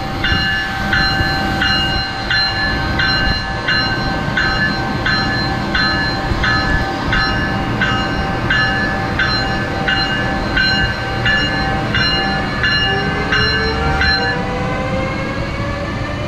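Amtrak ACS-64 electric locomotive passing slowly with its bell ringing steadily, about one and a half strokes a second; the bell stops near the end. Just before it stops, a rising whine from the locomotive's electric drive comes in as the train picks up speed.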